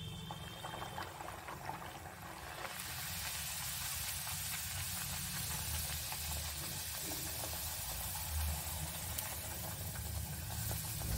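A sweet pumpkin puri (gharge) deep-frying in hot oil: a steady sizzle that grows louder about three seconds in as the dough bubbles and puffs up.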